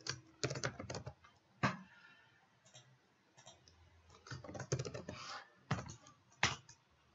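Computer keyboard being typed on in several short bursts of keystrokes, as text is entered into a name field.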